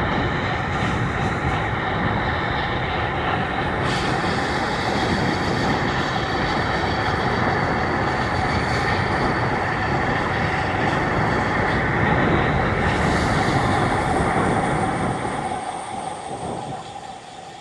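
Train running on rails: a steady rumble with a held tone, fading away over the last couple of seconds.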